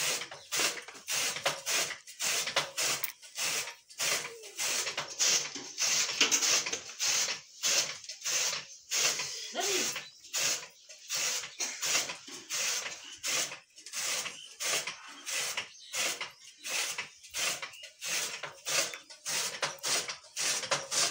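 Hand-cranked chaff cutter chopping green grass and berseem for buffalo fodder. Its flywheel blades slice through the fodder with a rhythmic swishing chop, about twice a second.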